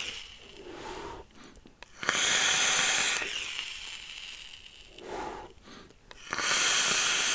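Airy hiss of a vaper drawing through a single-coil rebuildable tank with its bottom airflow wide open at 80 watts, followed by the breathy exhale of the vapour. A second draw starts near the end.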